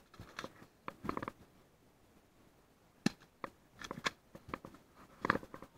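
Footsteps crunching and shuffling through dry leaf litter, with irregular short clicks and rustles of gear.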